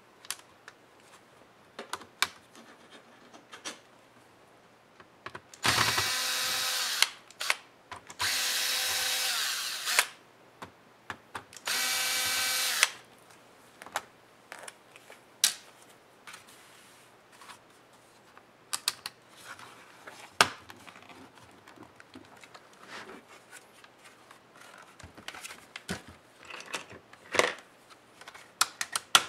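Electric screwdriver motor running in three short bursts, about a second and a half, two seconds and one second long, backing screws out of a laptop case. Small clicks and taps of screws and plastic parts being handled come in between.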